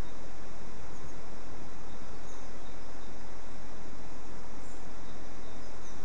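Steady, even hiss that fills the track, with a few faint, high, short chirps of small birds about two seconds in and again near the end.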